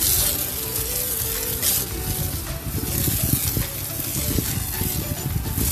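Water from a garden hose spray nozzle hitting sandy pavement, with a steady hiss and spatter.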